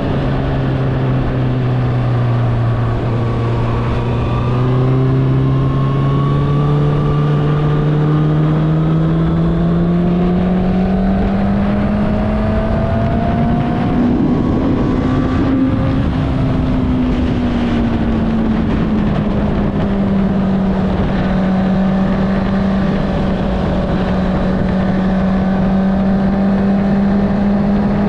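Honda CBR650R's inline-four engine with an Akrapovic exhaust, under way: its note climbs slowly and smoothly for about fifteen seconds as the bike accelerates, then eases back a little and holds steady at cruise. Wind noise runs underneath.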